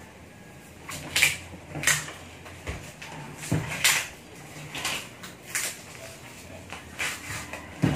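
End cap of a cardboard rod shipping tube being twisted and worked loose by hand: a run of short, dry scraping rubs, roughly one or two a second, starting about a second in.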